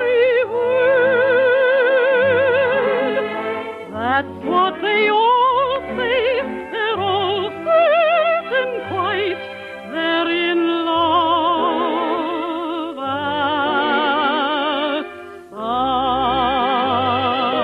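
Operatic singing with a wide vibrato over an orchestra: long held notes in a sentimental love song from an operetta, with quick rising runs about four seconds in and a short drop in level near the end.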